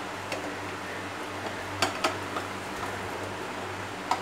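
Wooden spatula scraping and tapping against a non-stick frying pan while flipping omelette-coated bread slices, with a few sharp clicks, the loudest about two seconds in and just before the end. Oil sizzles softly underneath.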